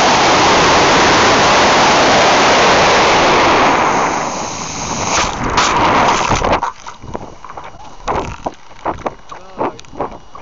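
Model rocket launch on a D12-5 black-powder motor: a loud, steady rushing roar of the motor burn and the air rushing past the climbing rocket, through a cheap camera taped to its side. The roar fades after about four seconds and is gone by about six and a half seconds, leaving irregular clicks and buffeting.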